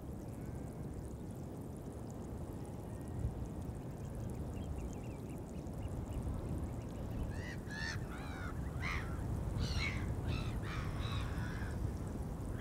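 Wind rumbling on the microphone throughout. Over it, birds call several times in the second half, with a faint rapid trill just before.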